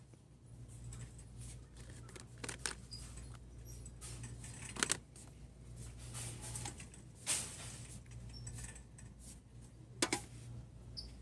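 Small items being handled: scattered clicks and rustles, the sharpest about five, seven and ten seconds in, over a steady low hum.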